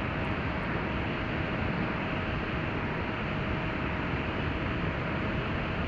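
Steady rush of wind and propeller noise from an FPV plane in fast, low flight, with a faint constant whine from its brushless motor and 8-inch propeller.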